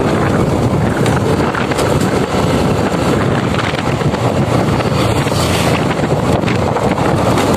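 Steady wind rushing over the microphone of a motorcycle riding along at speed, mixed with the engine and tyre noise.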